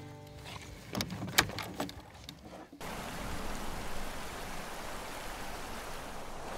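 A few sharp clicks and knocks of the metal latch and chain on a wooden dog box being shut, then a sudden switch to the steady rush of running water.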